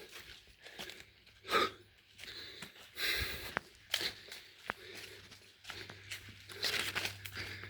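Footsteps crunching and scraping on a forest trail, irregular steps about once a second.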